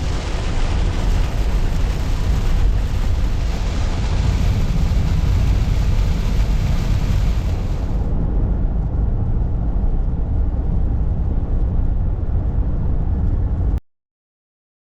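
Heavy rain pelting a moving car's windshield and roof, heard inside the cabin over a steady low road rumble. The sound cuts off suddenly near the end.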